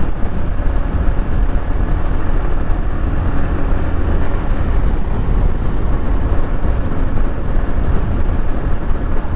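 Motorcycle riding noise: a steady, unchanging low rumble of the bike and the road.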